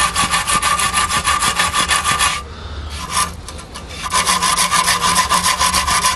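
A small suede shoe brush scrubbed rapidly back and forth along a thin copper strip to clean it bright: quick, even scrubbing strokes, about ten a second. They stop for under two seconds just past the middle, apart from a brief flurry, then carry on.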